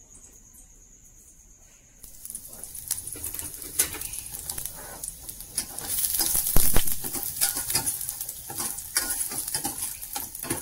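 Shallots and spices sizzling in a spoonful of hot oil in a small stainless steel pan, with a metal spoon stirring and scraping against the pan. The sizzle starts abruptly about two seconds in, after a quiet start.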